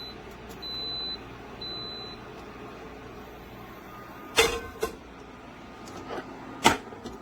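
COOKTRON portable induction hob beeping its error alert, three short high beeps about a second apart, because the pan on it is not induction-compatible, over a steady hum. Later come three sharp knocks as pans are handled on the hob's top.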